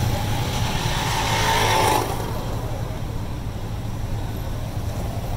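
Road traffic heard from inside a slowly moving car, over a steady low engine hum. A motorcycle accelerates close alongside and rises in pitch over the first two seconds, then its sound drops away abruptly.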